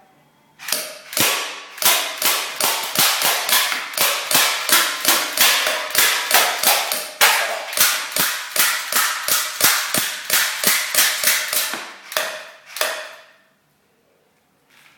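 Electric airsoft Glock pistol firing a long, rapid string of shots, about three a second, stopping after about twelve seconds.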